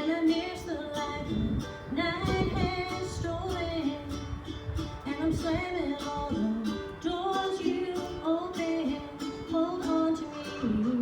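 A singer performing a gospel song, accompanied by a strummed acoustic string instrument, with a steady strum throughout.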